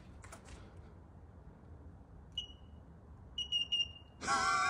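Fingerprint reader on a door entry panel beeping: one short high beep, then about a second later a quick run of beeps ending in a longer tone, which here goes with the finger scan failing. A man's voice cries out loudly right at the end.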